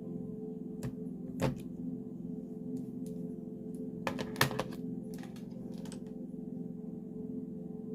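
Sharp clicks and taps from handling makeup tools and containers, a single one about a second and a half in and a quick cluster about four seconds in, over a steady ambient music drone.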